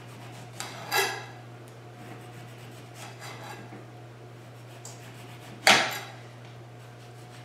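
Chef's knife slicing the peel and membrane off an orange and tapping on the cutting board: a few soft knocks and one louder knock about five and a half seconds in, over a steady low hum.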